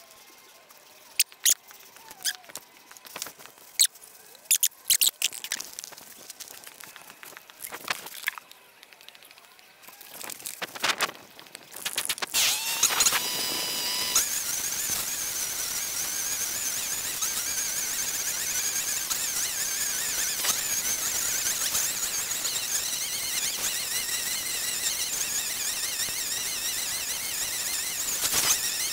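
Handling clicks and knocks, then about twelve seconds in a string trimmer's motor starts and runs steadily at high speed with a high-pitched whine.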